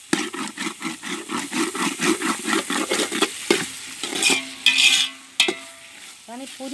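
Metal spoon scraping around a metal pot, stirring chicken masala frying in oil, with sizzling underneath. The strokes come quickly, about five a second, for the first three seconds or so, then slow to a few sharper scrapes.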